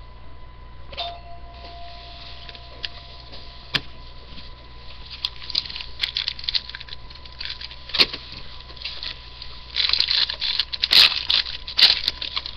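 Crinkling and crackling of a foil trading-card pack being handled and torn open, with cards shuffled; sparse at first, busier and loudest a couple of seconds before the end.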